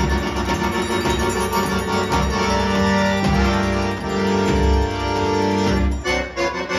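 Instrumental forró pé-de-serra played live on accordion with zabumba bass drum and triangle: held accordion chords over the drum's beat, breaking into short, choppy chords near the end.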